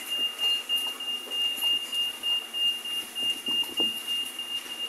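A steady high-pitched tone held at one pitch, swelling and fading slightly in strength, over faint scattered knocks.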